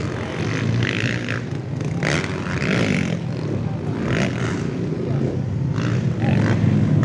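Motocross dirt bike engines running on the track: a steady low drone, with patches of higher noise coming and going every second or so.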